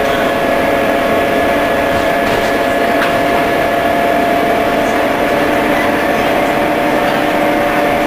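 MCW Metrobus double-decker under way, heard from inside the passenger saloon: the engine and drivetrain run steadily, a constant hum with a steady whine and no change in pace.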